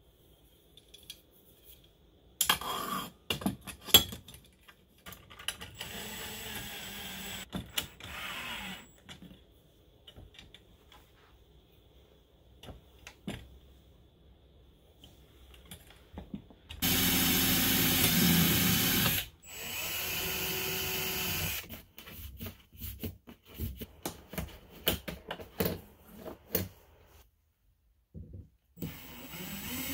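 Cordless drill running in several bursts of two or three seconds, the longest and loudest a little past halfway, and spinning up again near the end as it bores into PVC pipe. A few sharp knocks of metal tubing being handled come early on.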